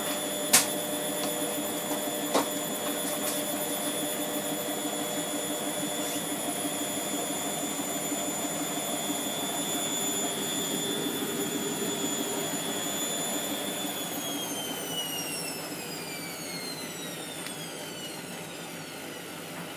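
Hotpoint Aquarius WMF720P washing machine on a spin with a very sudsy load, its motor giving a steady high-pitched whine that falls in pitch and fades over the last few seconds as the drum slows to a stop. Two sharp knocks sound near the start.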